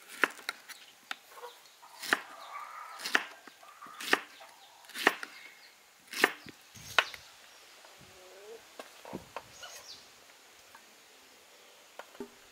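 Kitchen knife slicing through peeled pineapple and knocking on a wooden cutting board, about one cut a second, with only a few faint cuts in the second half.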